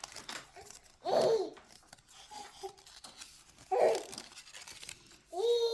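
A small child babbling and vocalizing in three short bursts, the last a held note that falls away, with faint rustling and clicking of toy packaging between.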